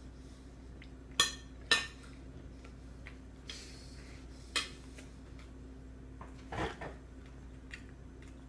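Spoon knocking and scraping against a toddler's metal-rimmed suction bowl: two sharp clinks about a second in, another near the middle, then a short rattling scrape.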